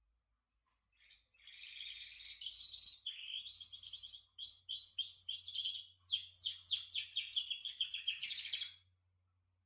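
Domestic canary singing one long song of rapid, high trills. The phrases repeat quickly and change several times, and the song stops shortly before the end.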